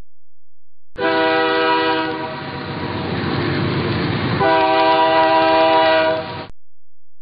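Locomotive air horn sounding two blasts: a short one of about a second, then a stretch of rushing train noise, then a longer blast of about two seconds that cuts off abruptly.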